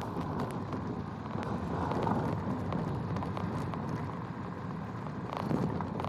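Vehicle driving over a rough dirt forest track, heard from on board: a steady engine and road rumble with scattered knocks and rattles as it rides over bumps.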